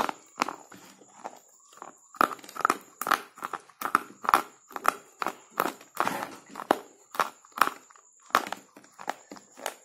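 Slate pencil bitten and crunched between the teeth close to the microphone: a run of sharp, dry crunches, about two a second, with a short pause a little after the start.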